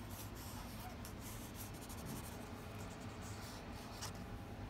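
Faint scratching and rubbing of a water-soluble wax crayon (Lyra Aquacolor) being scribbled across sketchbook paper.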